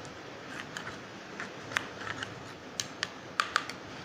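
Metal spoon stirring a thick paste in a small ceramic bowl, with irregular light clicks of the spoon against the bowl, the sharpest near the end.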